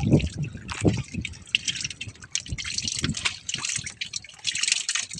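Water splashing and dripping in irregular bursts.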